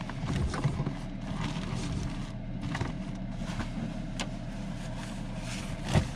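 Packed items being shifted around in a lidded container, with rustling and light clicks and knocks and a sharper knock near the end, over a steady low hum.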